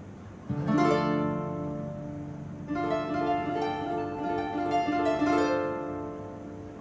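Paraguayan harp playing: plucked notes ring out from about half a second in, followed by a run of quick, bright plucked notes from about three seconds in that fades toward the end.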